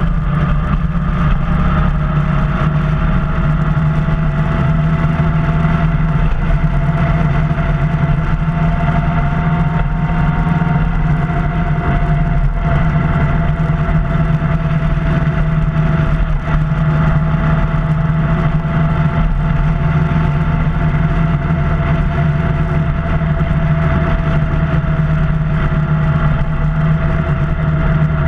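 Motorcycle engine running at a steady cruising speed, a constant drone whose pitch rises a little around ten seconds in and then eases back.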